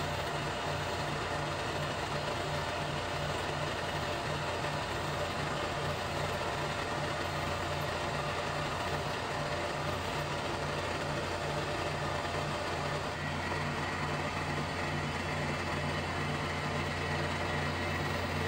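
Milling machine spindle running steadily while a 1/8-inch four-flute high-speed steel end mill cuts a keyway into a metal shaft. A thin high whine joins in about two-thirds of the way through.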